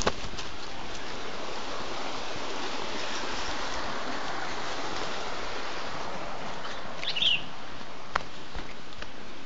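Steady rush of flowing stream water, with a short bird chirp about seven seconds in and a sharp click a second later.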